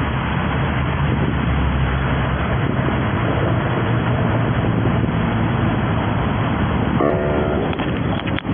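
Steady roadside traffic noise of vehicles passing, with a low engine hum underneath. About seven seconds in comes a brief pitched tone like a horn, and a few sharp clicks follow near the end.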